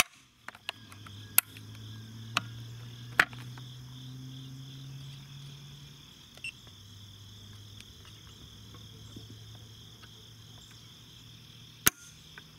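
A few light handling clicks, then near the end one sharp metallic click as the empty FN SCAR 17S's Timney single-stage trigger breaks and the hammer drops during a trigger-pull gauge measurement. Steady chirring of crickets and a low hum go on underneath.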